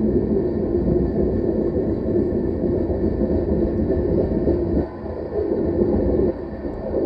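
Freight train cars (tank cars and covered hoppers) rolling past, a steady rumble of wheels on rails. The level drops briefly twice in the last couple of seconds.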